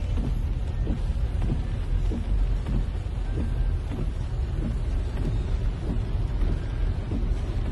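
Heavy rain pouring and floodwater rushing, a steady noisy rumble that is strongest in the low range.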